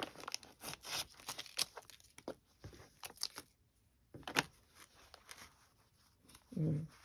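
Soft paper and fabric rustling: a torn paper wrapper and folded cotton fabric being handled and unfolded, in scattered short crinkles with a couple of brief pauses.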